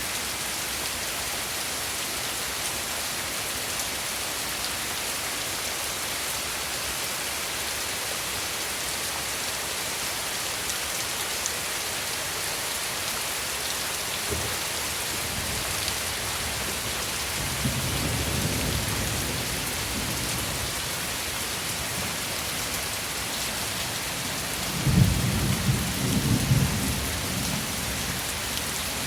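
Steady rain, with thunder rumbling in behind it: a low rumble about halfway through and a louder roll of thunder near the end.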